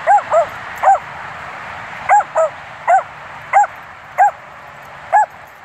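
Small Dachshund/Beagle mix barking in short, high-pitched yips, about nine in an irregular run, over a steady background hiss.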